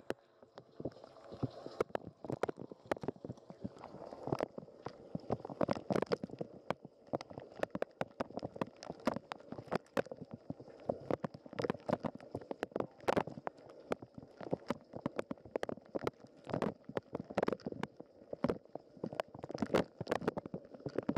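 Dishwasher wash cycle heard from inside the machine through a waterproof camera housing: water from the spray arms splashing and spattering irregularly against the housing and dishes, with a faint steady high tone throughout.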